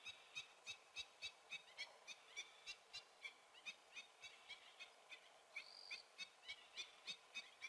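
A bird calling in a steady series of short, repeated notes, about three a second, with a brief higher whistle about six seconds in.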